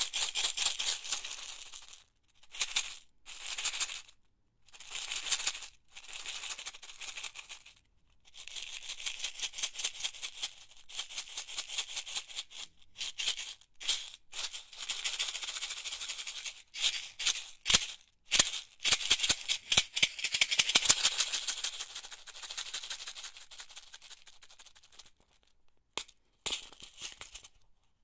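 A box of office pins rattling in repeated bursts of rapid clicking, with short pauses between them. A few sharper single clicks stand out in the middle and near the end.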